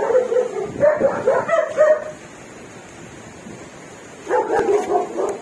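A dog whining and yipping in a run of short pitched calls for about two seconds, then again for about a second near the end.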